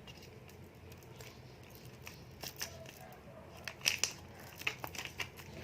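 A sachet packet being handled and pulled at by hand to open it: scattered faint crinkles and clicks, mostly in the second half.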